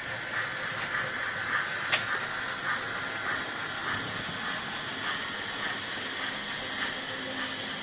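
Märklin H0 model steam locomotive (BR 01) with a digital sound decoder, giving a soft steady chuffing over the hiss of the running model train, with one sharp click about two seconds in.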